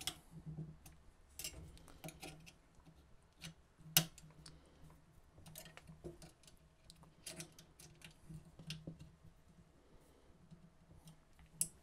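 Faint, scattered clicks and taps of a hex key and small metal parts as a lead screw mount is tightened onto an aluminium extrusion frame, with one sharper click about four seconds in.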